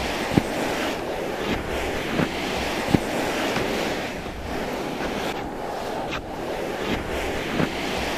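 Steady rushing noise that swells and eases slowly, with a few short faint clicks scattered through it.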